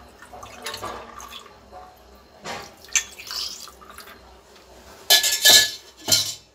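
Mint-lemon juice poured from a steel vessel into glasses of ice cubes, splashing onto the ice with a few light clinks. About five seconds in, loud clattering knocks of metal and glass as the vessel is tipped up and moved away from the glasses.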